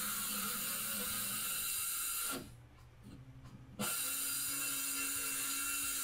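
Ryobi cordless circular saw running through a sheet of plywood, a steady hiss with a low hum, dropping away briefly about two and a half seconds in before starting up again.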